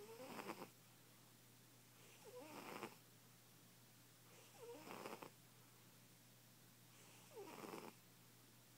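Fat house cat snoring in its sleep: four short rasping snores, one about every two and a half seconds, each starting with a brief squeaky note.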